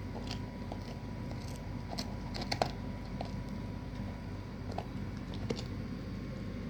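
Doberman gnawing a cow bone: scattered sharp cracks and crunches, the loudest a quick cluster about two and a half seconds in, over a steady low hum.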